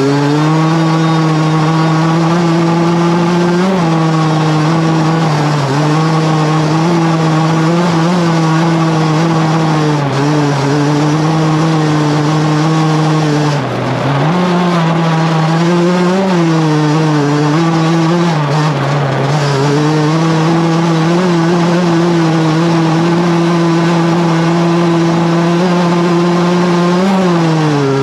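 Racing lawnmower's motorbike engine running hard at high revs, heard onboard. It holds a steady note with brief dips in revs, the deepest about 14 seconds in, before pulling back up.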